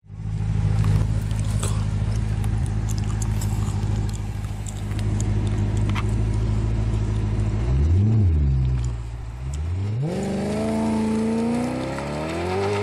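Maserati Quattroporte V8 idling steadily at the exhaust, given one quick blip of the throttle about eight seconds in. Then it pulls away, the revs rising near the end.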